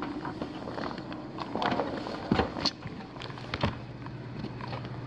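A few sharp knocks and handling thumps, the loudest about two and a half seconds in, over a steady low hum whose pitch drops a little past the three-second mark.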